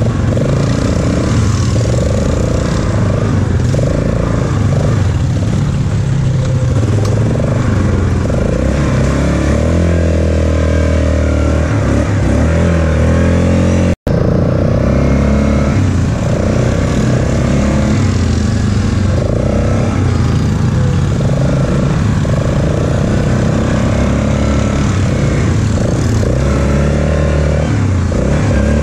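Single-cylinder four-stroke ATV engine running under way on a dirt trail, its pitch rising and falling with the throttle. The sound cuts out for an instant about halfway through.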